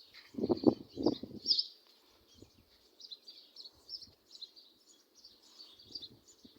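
Small birds chirping continuously, with a couple of short, louder low sounds in the first second and a half.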